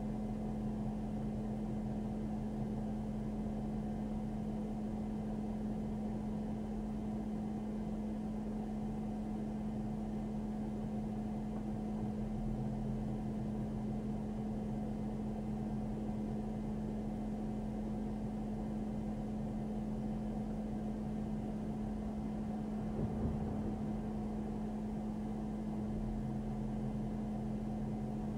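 Steady hum and hiss of a parked patrol car idling, heard from inside the car, with a brief faint bump about three-quarters through.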